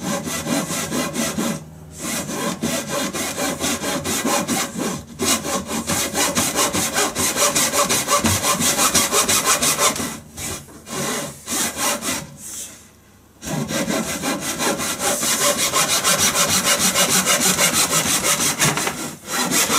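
Japanese rigid-spine pull saw cutting through a thick Japanese pine blank in quick, even strokes. It stops briefly a few times, the longest pause about thirteen seconds in. The result is a clean cut.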